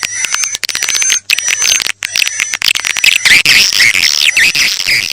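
Swiftlet lure-call recording used to draw swiftlets into a new bird house: rapid dry clicking with high thin twittering chirps, growing denser about three seconds in.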